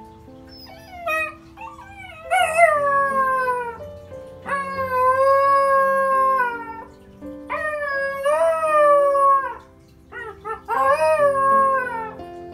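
A beagle howling: a run of long, drawn-out howls, each falling in pitch at the end, with a few short yips between them, over background music with sustained notes.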